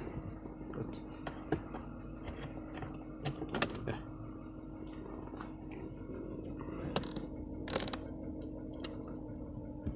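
A few scattered light clicks and knocks from handling the gear shifter knob and its retaining clip, over a faint steady hum.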